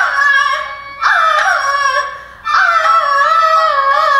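Kunqu opera singing: a high female voice holds long, wavering notes with ornamented pitch bends, breaking off briefly twice, over instrumental accompaniment.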